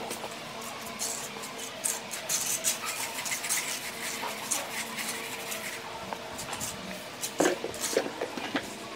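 Steel trowel scraping and smoothing wet cement mortar along a cornice: a run of short, scratchy strokes, loudest about seven and a half seconds in.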